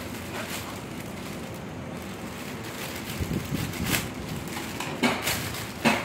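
Thin plastic mailer bag crinkling and rustling as it is slit open with a utility knife and pulled about by hand, with a few short sharp crackles about five seconds in and just before the end, over steady background noise.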